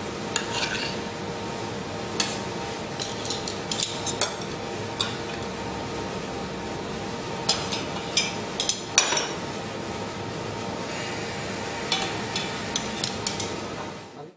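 Kitchen utensils and cookware clinking and knocking in scattered groups of sharp taps over a steady background hum, as food is set up for steaming. The sound cuts off abruptly near the end.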